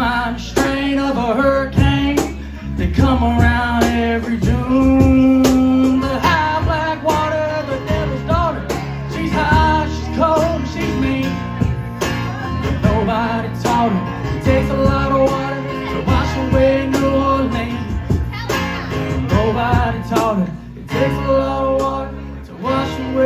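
A band playing a blues-rock song: guitars and drums under a sung melody line.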